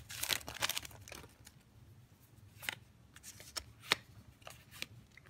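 Foil booster-pack wrapper crinkling as it is handled, fading within the first second, then a scattering of soft clicks and snaps as Yu-Gi-Oh trading cards are slid out and flipped through by hand.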